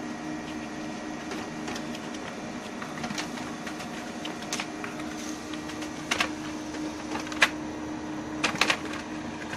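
Colour duplex laser printer running steadily while printing, with a constant hum, and a few sharp clicks in the second half.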